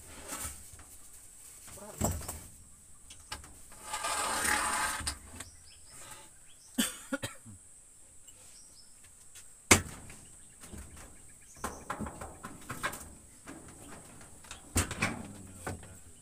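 Scattered knocks and thumps from hand building work on a wooden hut, with a scraping rustle lasting about a second roughly four seconds in.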